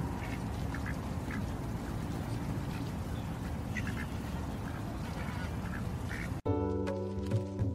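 White domestic duck quacking in scattered short calls over a steady low background noise; music cuts in suddenly near the end.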